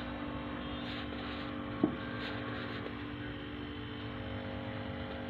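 Refrigerator compressor running with a steady hum while the fridge is being charged with refrigerant, with a single sharp tap about two seconds in.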